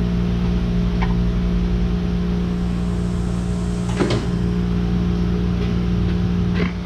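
A pry bar makes a few sharp metal knocks as it works the oil pump housing off a Honda V6 block. The loudest knock comes about four seconds in. A steady hum runs underneath.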